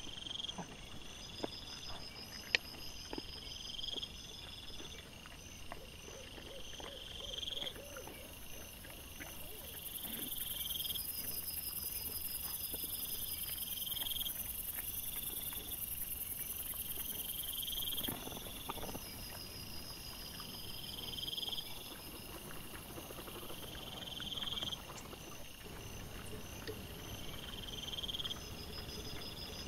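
Night insects chirping in a steady repeating pattern, one high chirp about every second and a half, with fainter trilling above. Faint scattered rustles and a sharp click come from the ground below.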